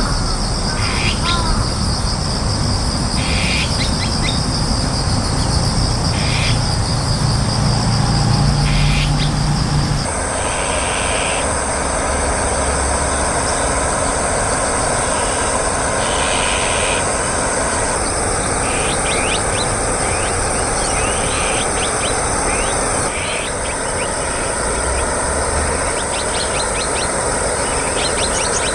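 Azure-winged magpies giving short harsh, grating calls, repeated every second or few seconds, over a steady loud shrill of insects.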